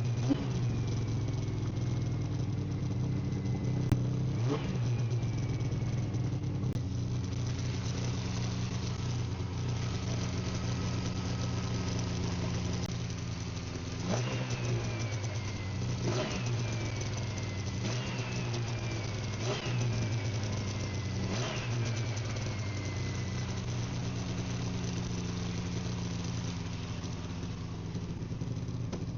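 2000 Yamaha PZ500 Phazer snowmobile's two-stroke twin engine idling steadily, freshly started. The rider blips the throttle about seven times, mostly in the second half, and each blip's revs fall away with a dropping whine.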